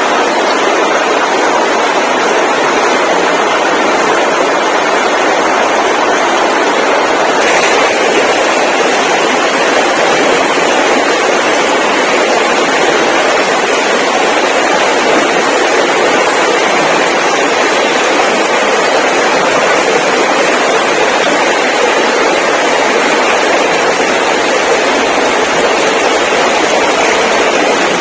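Loud, steady rushing noise with no clear rhythm or pitch, changing slightly in tone about seven seconds in.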